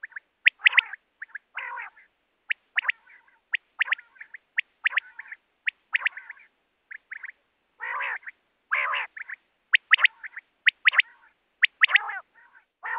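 Common quail calling: sharp, high 'whit wit-wit' notes in quick groups of two or three, repeated over and over, with a few longer, harsher calls in between, about 1.5, 8, 9 and 12 seconds in.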